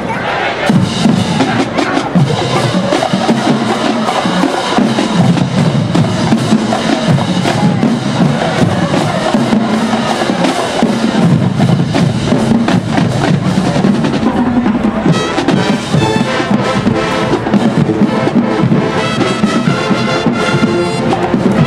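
Marching band drumline playing, snare and bass drums with rolls. The band's horns come in about fifteen seconds in.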